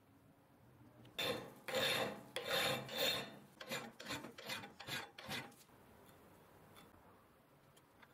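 Hand file rasping along the edge of a metal plate, smoothing down hardened grey filler: about eleven strokes, four longer ones at first, then shorter, quicker ones, stopping about five and a half seconds in.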